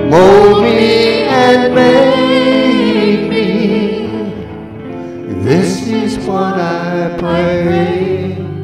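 Worship song sung to hollow-body electric guitar accompaniment, in two sung phrases: one in the first half and another from a little after halfway to the end.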